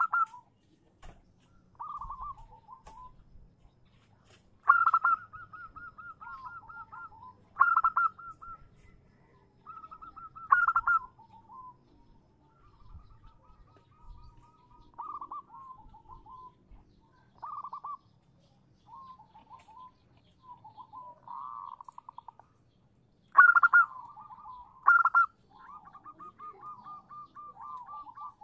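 Female zebra dove (perkutut) calling: repeated cooing phrases, each starting with a loud note and running into a fast string of short rattling notes. The loudest phrases come about five, eight and eleven seconds in and twice near the end. This is a female's call, used as a lure to make males answer.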